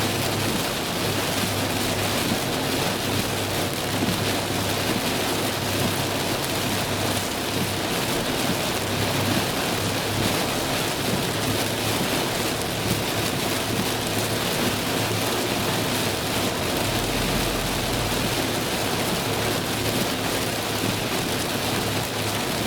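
Heavy rain beating on a car as it drives through a thunderstorm, a steady dense hiss with the low hum of road noise beneath.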